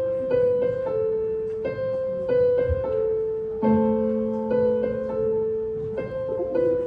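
Portable electronic keyboard played with a piano voice: a slow melody of single notes, about two a second, each struck and fading. A lower note joins about three and a half seconds in.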